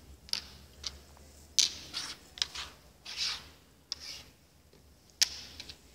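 Draughts pieces being moved and set down on a wooden board: a series of sharp clicks, about six in all, the loudest about a second and a half in and again near the end.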